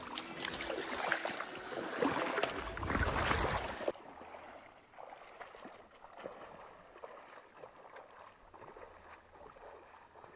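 A hiker wading through a fast, deep river, with water splashing and rushing around the legs. About four seconds in it cuts off suddenly to a much quieter background with faint rustles and ticks.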